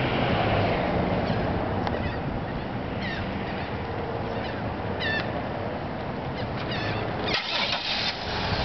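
Steady outdoor background noise with a few short bird chirps, then near the end a 2002 Chevy Impala being started by its remote starter, a short noisy burst of the engine catching.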